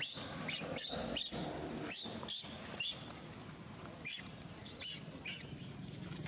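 Baby macaque giving short, high-pitched squeaks, about ten in an irregular series, growing fainter after the first few seconds.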